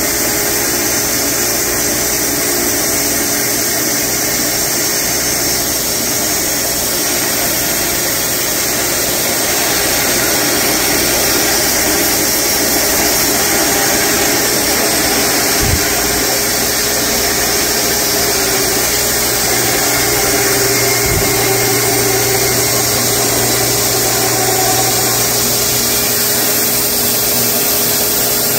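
Wood-Mizer LX250 bandsaw mill running steadily on its electric motor, its blade sawing through a large horse chestnut log to take off the first slabs. There are two brief low knocks a few seconds apart midway.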